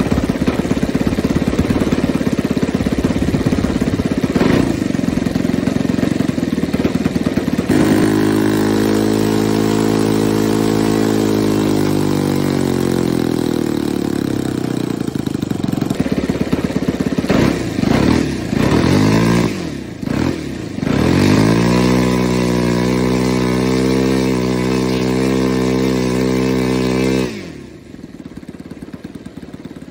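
Nitro model airplane engine running with its propeller turning, its note sinking slowly, then revved up and down a few times and held steady before it cuts out abruptly a few seconds before the end.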